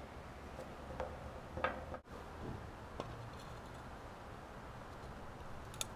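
A few faint clicks and taps of hands working on metal bolts and fittings, over a low steady background hum.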